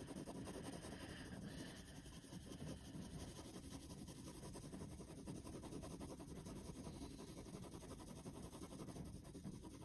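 Faint scratching of a graphite pencil shading on paper, worked round in circles.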